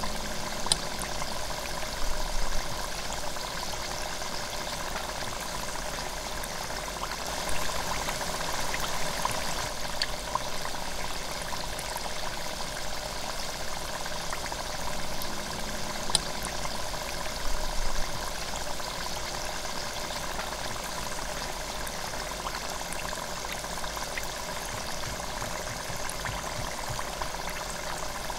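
Deep-frying oil sizzling and bubbling steadily around a spring roll in the basket of an electric deep fryer. A few sharper pops and crackles break through now and then.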